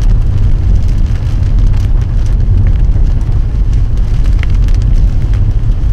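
Steady low rumble of a car on the move, heard from inside the cabin, with scattered light ticks over it.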